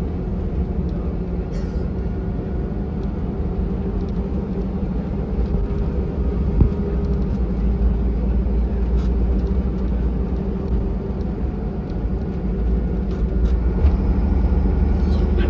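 Inside the cabin of a 2001 Volvo B7R bus on the move: the steady drone of its six-cylinder diesel engine and road rumble, with a single knock about six and a half seconds in. It grows a little louder near the end.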